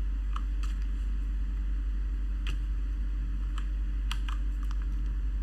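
Single key presses on a Galax HOF mechanical keyboard with Cherry MX Brown switches: about eight separate clicks at uneven intervals, several close together in the second half, over a steady low hum.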